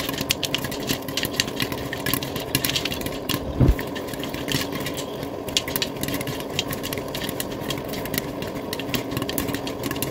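Popcorn kernels popping in hot oil inside a wok covered with a glass lid: a dense, rapid patter of sharp pops at the height of popping. A brief low thud about three and a half seconds in.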